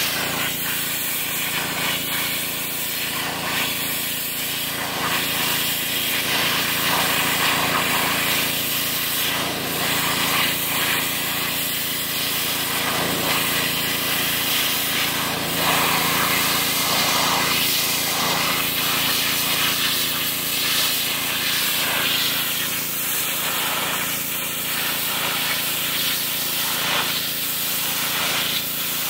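Pressure washer running: a steady motor hum under the loud hiss of the high-pressure spray jet, blasting flesh off a whitetail deer hide. The spray's hiss rises and falls a little as the jet moves over the hide.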